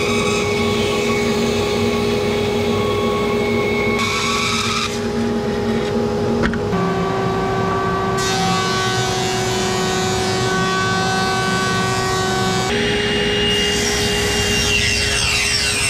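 Stationary woodworking power saws running and cutting wood, a steady motor hum under the sound of the blade in the wood. A bandsaw cuts a wooden block first, and a table saw rips a long board near the end; the sound changes abruptly twice as the machine and cut change.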